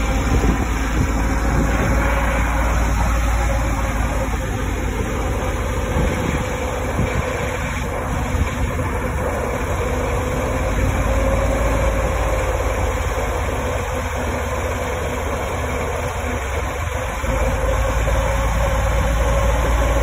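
Bucket truck's engine idling steadily, with a steady mid-pitched whine over the rumble that rises slightly about halfway through.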